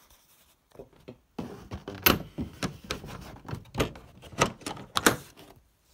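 Irregular knocks and clicks from handling the sheet-metal tube caddy, its hinged door and fittings being worked, starting about a second and a half in.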